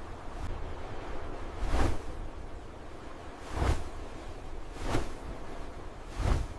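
Four short whooshing swishes, one to two seconds apart, over a steady rumble of wind on the microphone.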